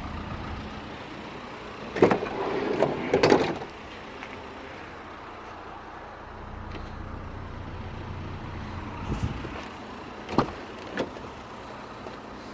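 Van door handling: a loud clunk about two seconds in and another just after three seconds, then a low steady hum, and a few sharp clicks near the end.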